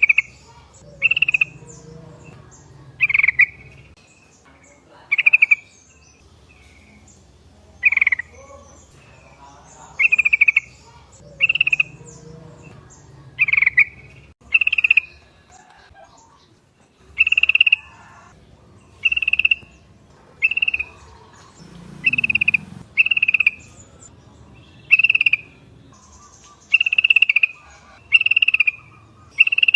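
Sooty-headed bulbul (trucuk) calling: short, sharp call notes repeated about every one to two seconds.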